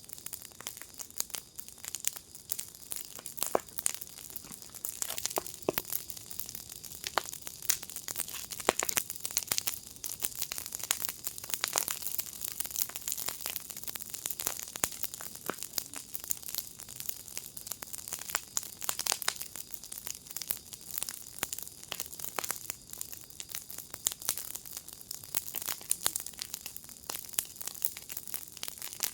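Wood fire burning in a firepit, crackling with dense, irregular pops and snaps over a steady hiss.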